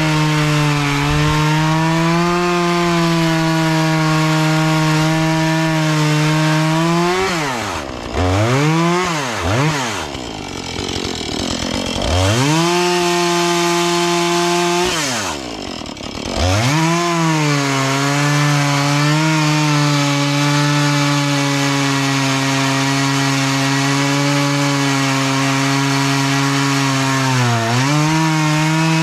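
Husqvarna 435 two-stroke chainsaw running at high revs cutting wood. Several times the pitch drops sharply and climbs back as the throttle is released and squeezed again between cuts: about a quarter of the way in, around the middle, and near the end.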